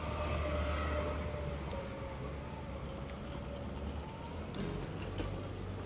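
Döner stall ambience: a steady low hum that drops away about four seconds in, under a light hiss and scattered small clicks of metal tongs working meat in a steel pan.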